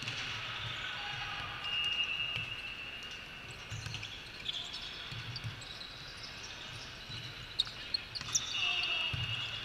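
Sounds of indoor volleyball play in a large echoing hall: balls bouncing with dull thuds, a few high squeaks, and two sharp smacks of ball hits in the last two seconds.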